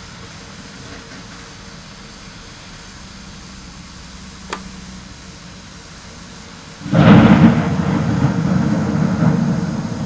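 Thunderclap: a sudden loud crack about seven seconds in, then a rolling rumble that keeps going, heard from indoors through a window pane.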